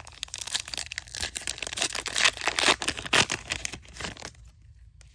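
Crinkly wrapper of a baseball card pack being torn open and crumpled, a dense crackling that stops suddenly near the end.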